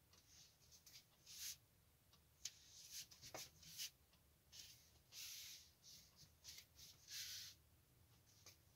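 Faint rustling from make-up being applied close to the microphone: several short, soft swishes and rubs, with a small click about two and a half seconds in.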